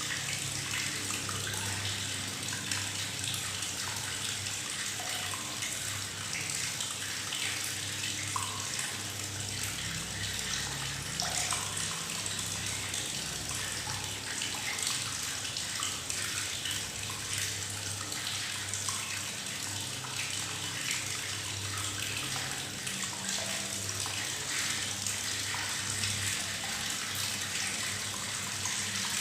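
Tap water running steadily into a bathtub, gurgling and bubbling as it splashes into the water.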